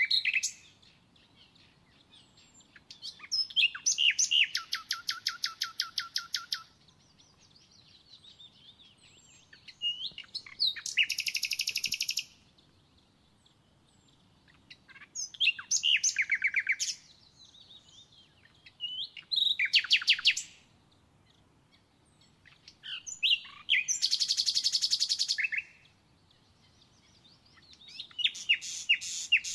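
A songbird singing close by in loud phrases of fast trilled notes, each phrase two to three seconds long, with pauses of a few seconds between them. Some phrases end in a falling trill.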